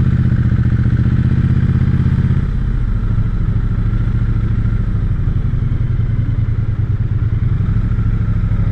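Triumph Bonneville T100's parallel-twin engine running as the motorcycle rolls slowly along the road shoulder, the note easing off and dropping a little about two and a half seconds in.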